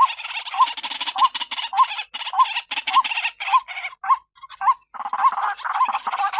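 White-breasted waterhen (ruak-ruak) calling: a rasping note repeated a little under twice a second, thinning out for a moment about four seconds in before the calls pick up again. This is the female's call used as a lure to draw other waterhens in.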